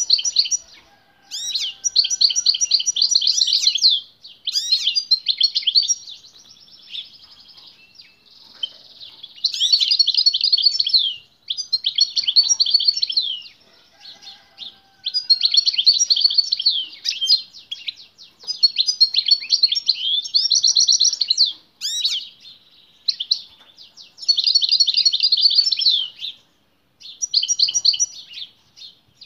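Caged male European goldfinch singing strongly: bouts of rapid twittering and trilled notes, each lasting a second or two, broken by short pauses.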